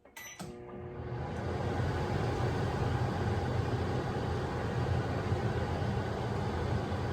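Microwave oven starting up with a couple of quick keypad clicks, then running with its steady low hum and fan noise, which builds over the first second and holds.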